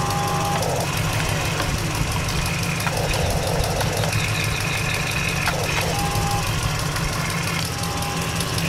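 RC excavator working: high-pitched electric motor whines start and stop several times as the boom, arm and bucket move, over a steady low, engine-like chugging drone.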